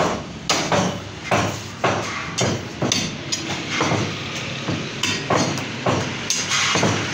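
A heavy meat cleaver chopping through a leg of goat meat on a wooden tree-trunk chopping block: a steady run of sharp chops, about two a second, as the blade strikes through meat and bone into the wood.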